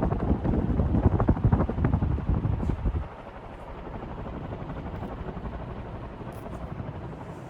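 New Fan industrial ceiling fan running on high speed, its blades pushing a strong draught that buffets the microphone with a choppy whoosh. About three seconds in the buffeting drops away suddenly, leaving a steadier, quieter rush of air.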